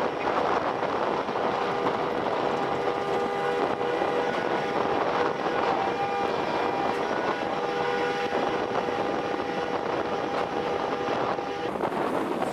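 Machinery running steadily, with a noisy hum under a few steady whining tones that stop about a second before the end.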